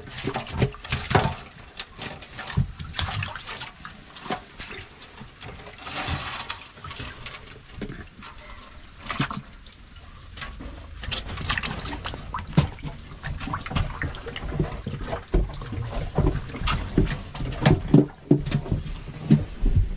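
Water splashing and sloshing in short, irregular bursts with knocks, coming thicker in the second half.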